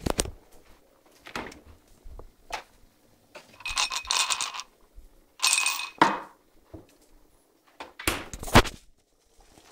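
Glass and ceramic mugs being handled: scattered knocks and clinks, with two longer scraping clatters about four and six seconds in.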